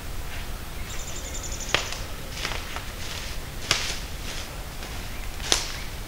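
Footsteps crunching through dry leaf litter, with three sharp crackles of leaves and twigs underfoot about two seconds apart and fainter crunches between.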